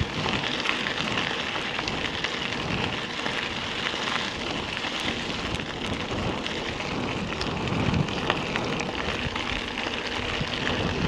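Mountain bike tyres rolling fast over a gravel forest road: a steady crunching hiss with small scattered ticks of grit.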